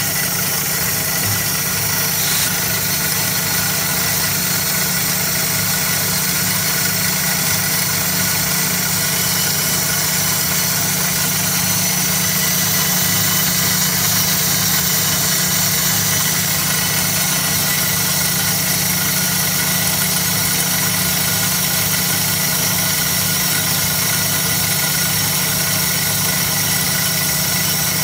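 Band saw running steadily with a low hum, its blade slowly cutting through a golf ball clamped in the saw's vise.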